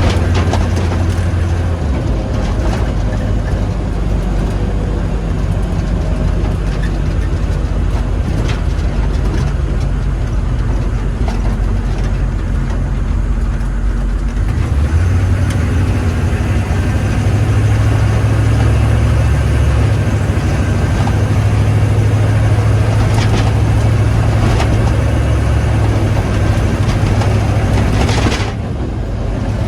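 HMMWV (Humvee) V8 diesel engine running steadily under a test drive. Its low drone shifts in pitch about two seconds in and again about halfway through.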